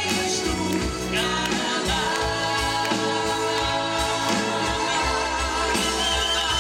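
Live pop band performance with singing: vocals over drums, bass guitar, electric guitar and keyboards.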